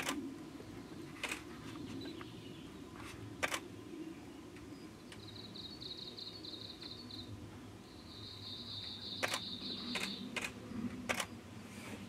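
Japanese leaf warbler singing: two runs of quick, rhythmic high notes, each about two seconds long, one around the middle and one toward the end. Several sharp clicks fall in between, over a steady low rumble.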